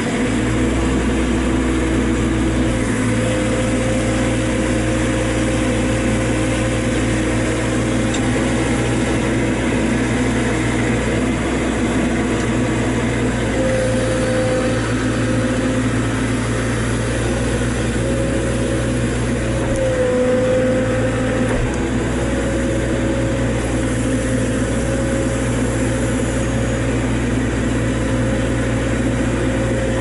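JCB 3CX Sitemaster backhoe loader's diesel engine running steadily under load from inside the cab while the backhoe digs, the joysticks working the hydraulics. A steady tone sits over the engine hum and dips briefly a few times.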